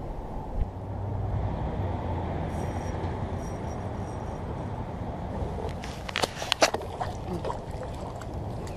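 Steady low rumble around a kayak on moving water under a bridge. About six to seven seconds in, a quick run of sharp clicks and knocks comes as a hooked fish is brought alongside.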